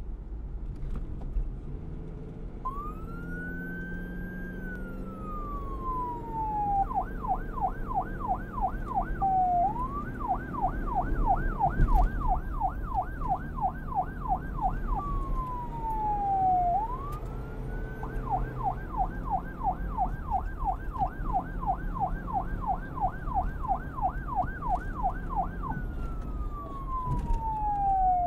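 Police car siren cycling between a slow wail and a fast yelp. It starts a couple of seconds in, rising and then sliding slowly down, breaks into rapid up-and-down sweeps about four a second, and repeats the pattern over a low rumble.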